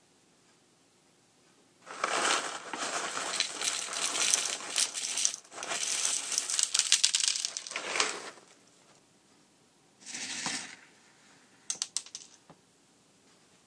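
Jolly Pong puffed wheat cereal poured onto the top of a drink in a tall glass: a dense crackling rattle of light, crisp pieces landing on one another and on the glass for about six seconds, then a shorter pour about two seconds later. A few sharp clicks follow near the end.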